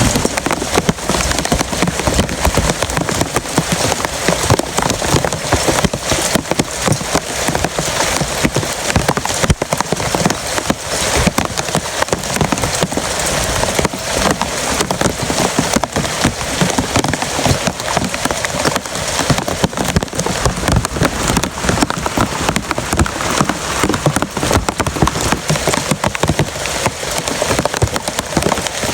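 Heavy rain falling on a surface: a dense, steady patter of many drops.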